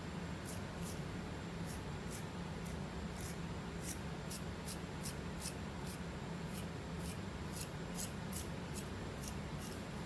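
The tip of a plastic comb scratching over a dry, flaky scalp, in short scraping strokes at about two to three a second.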